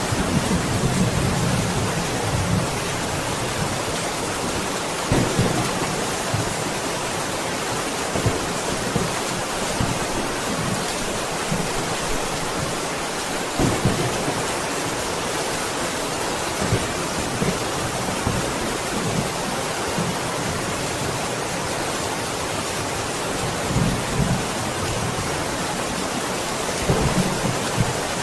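Steady, heavy rain in a thunderstorm, with short low rumbles of thunder breaking through, strongest near the start and again near the end.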